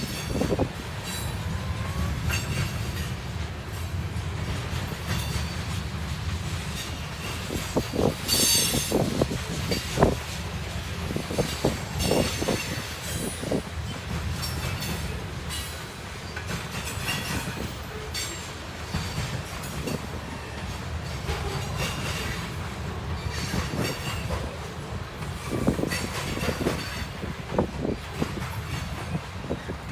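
Freight cars of a grain train rolling past: a steady low rumble with irregular clacks of wheels over rail joints, and a brief high wheel squeal about eight seconds in.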